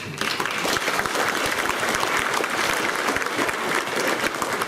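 School assembly audience clapping: applause breaks out just after the start and carries on steadily.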